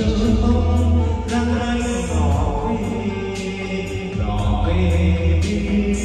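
Karaoke: a man sings a Vietnamese song into a handheld microphone over a backing track. The music plays through Paramax Euro 803 Special Edition floor-standing speakers and a Polk Audio HTS12 subwoofer, with heavy bass.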